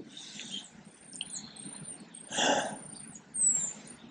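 Small birds chirping in the background, many short high thin calls, some sliding in pitch. Two brief louder noises cut in, about two and a half and three and a half seconds in, as the brake shoes and springs are worked on by hand.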